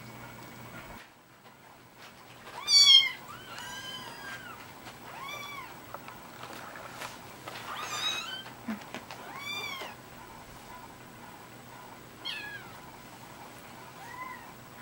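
Young kittens mewing: a string of short, high-pitched mews, the loudest about three seconds in.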